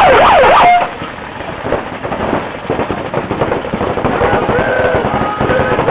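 An electronic start siren wails up and down rapidly and cuts off about a second in. Then comes rapid, continuous popping from many paintball markers firing at once as the point begins.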